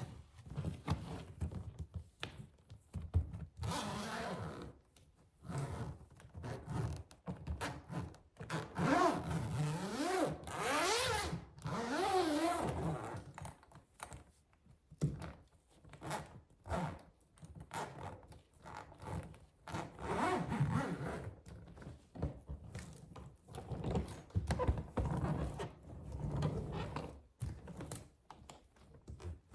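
Suitcase zipper slid back and forth in repeated rasping strokes, in uneven bursts, with scattered knocks and taps on the luggage between them.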